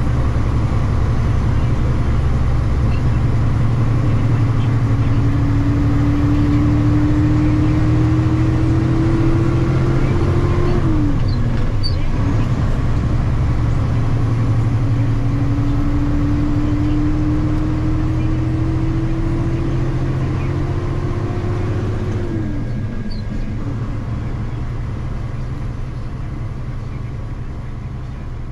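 Heavy engine running under load, with a whine that climbs slowly for several seconds and then drops away, twice; the rumble eases off near the end.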